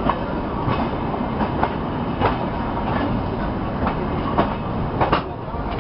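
Shatabdi Express coach rolling along a station platform: a steady low rumble of wheels on rail, broken by irregular sharp clicks as the wheels pass over rail joints and points.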